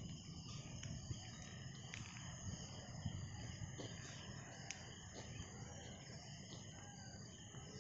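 Steady outdoor chorus of insects chirring in several high, overlapping bands, over a low rumble, with faint brief calls mixed in.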